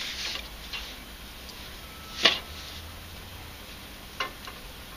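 Small plastic cable-gland fittings being handled and pushed onto a pump's power cable: a rustle at the start, then a few light clicks and taps, the sharpest about two seconds in and two softer ones near the end.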